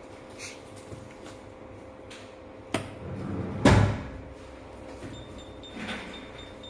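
Handling sounds on a Kyoritsu 3125 insulation tester: clicks as its rotary range selector is turned and knocks on its plastic case, with one louder, deeper thump a little after halfway. A faint steady high-pitched tone starts near the end.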